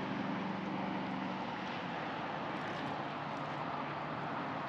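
Steady rush of traffic on a long elevated highway bridge, with a vehicle's low hum fading out about a second and a half in.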